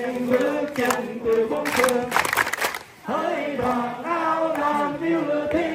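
A group of voices singing a song together, in held, melodic notes.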